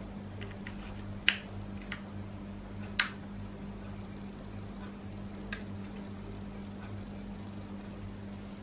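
A few sharp, short plastic clicks from a GoPro Hero 4 Silver action camera and a small part being handled and fitted together, over a steady low hum.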